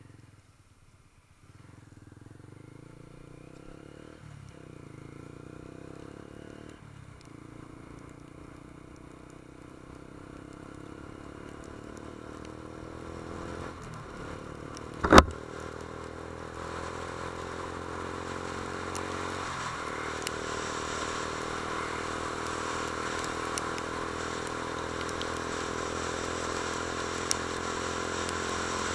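Honda CB150 Invicta's single-cylinder four-stroke engine pulling while riding, its pitch climbing and dropping back briefly four times as it shifts up through the gears. A single sharp knock about halfway is the loudest sound, and a rushing noise grows steadily louder over the second half.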